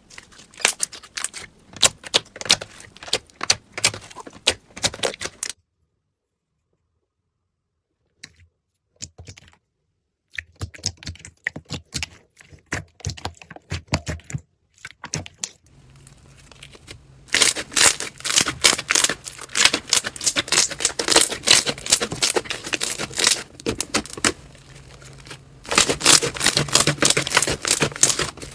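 Slime being squeezed and worked by hand, giving rapid crackling clicks and pops, in several bursts with a silent gap of a few seconds about six seconds in.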